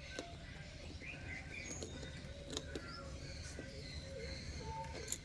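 Faint scattered bird chirps and short whistles, some dipping in pitch, over a steady low background rumble, with a few light clicks.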